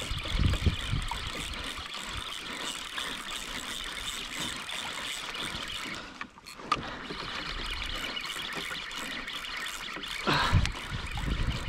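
Sea water washing and trickling against the plastic hull of a Hobie Revolution 13 kayak: a steady hiss, with low bumps of wind on the microphone in the first second and again near the end.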